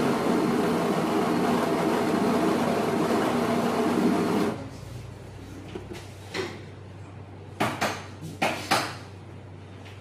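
Built-in coffee grinder of a Cafelffe EM653-3C espresso machine grinding into the portafilter on its countdown timer, stopping abruptly about four and a half seconds in. A few seconds later there are several sharp metal knocks and clinks as the portafilter is taken out of the grinder cradle.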